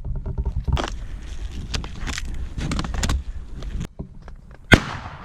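Irregular clattering and rustling of a player's kit and body movement close to the microphone, then a single sharp loud bang near the end that rings off briefly.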